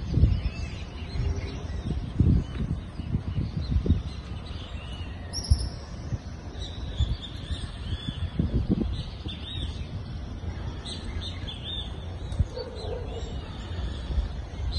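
Birds chirping and twittering in short repeated calls, busier in the last few seconds. Irregular low rumbles come and go in the first few seconds and again about eight and a half seconds in.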